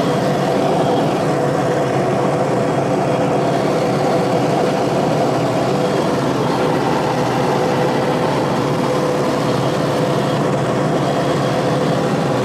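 Toyota pickup cruising at highway speed: a steady drone of engine and tyres on dry road, heard from inside the cab, with a few steady hum tones and no change in pace.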